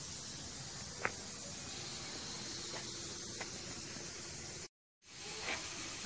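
Steady background hiss with a single sharp click about a second in. The sound drops out completely for a moment near the end.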